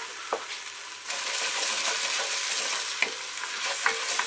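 Curry paste of onion, garlic, ginger, curry powder and tomato paste sizzling in hot oil in a stainless steel pot, stirred with a wooden spatula that scrapes the pan bottom. The sizzle grows louder about a second in. This is the frying-down stage, which runs until the oil separates from the paste with a crackling sound.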